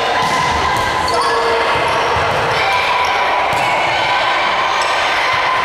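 Volleyball rally in a gym: the ball is struck sharply a few times, with players and spectators calling out throughout.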